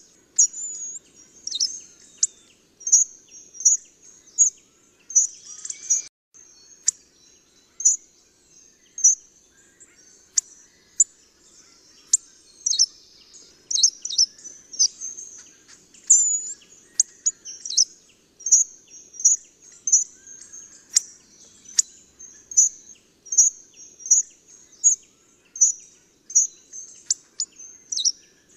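Hawfinch calling: short, sharp, high-pitched call notes repeated irregularly about one to three times a second, some as quick falling notes.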